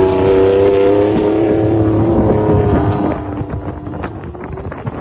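Ford F-150 Raptor's engine revving high and steady as the truck slides on dirt, then easing off about three seconds in, leaving a rougher, quieter rumble.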